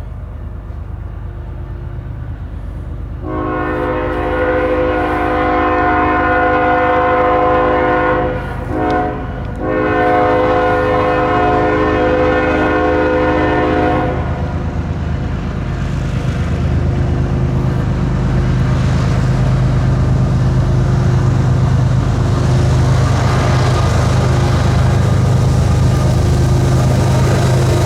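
Diesel freight locomotive's multi-chime air horn blowing two long blasts, with a short toot in the brief gap between them. It is followed by a heavy rumble of the locomotive's diesel engines and rolling train that grows louder as the train comes closer.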